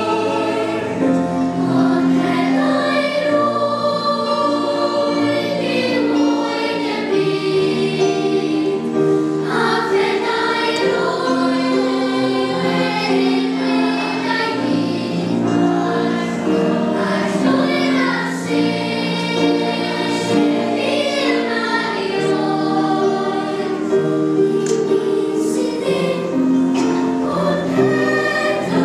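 Children's choir singing a song in held, sustained phrases.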